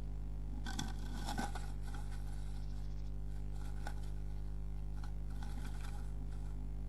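Scratching and rustling of a tit in a nest box, working nesting material into the nest. The noises are loudest about a second in, with a sharp click and a few fainter scrapes later, over a steady electrical hum.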